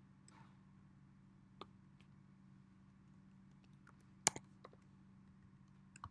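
Scattered single clicks of computer keys being typed, one louder click a little past four seconds in, over a steady low electrical hum.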